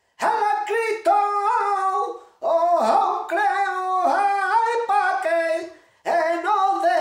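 A man singing flamenco cante unaccompanied, in long drawn-out phrases with wavering, ornamented notes, each phrase broken off by a short breath.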